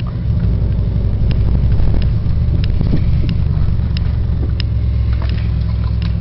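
Cadillac STS V8 engine running steadily with a deep, even exhaust rumble. Light sharp clicks come at a regular pace, about every two-thirds of a second.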